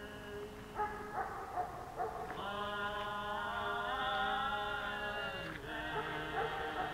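Voices chanting or singing in long held notes: a few short notes, then a note held for about three seconds, then another.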